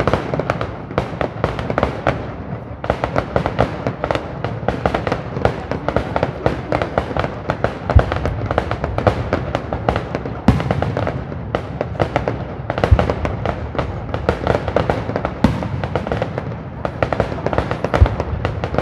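Fireworks display: dense, rapid crackling from many small bursts, with a deeper shell boom every two to three seconds in the second half.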